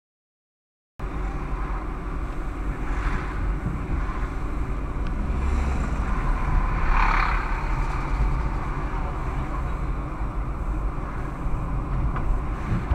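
Silent for about the first second, then a car driving along city streets: a steady low engine and road rumble with traffic noise, swelling briefly about six to seven seconds in.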